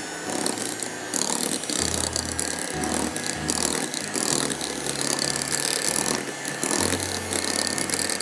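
Electric hand mixer beating a cream mixture in a glass bowl: a steady motor whir with the beaters rattling.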